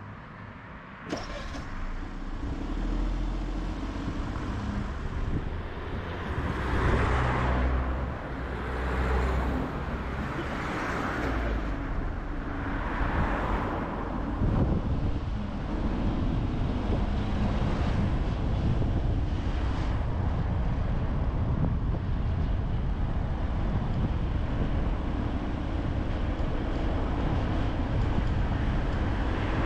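A car driving on the road: steady engine and tyre rumble that starts suddenly about a second in. The noise swells and fades four times between about 6 and 14 seconds in, then settles into an even rumble.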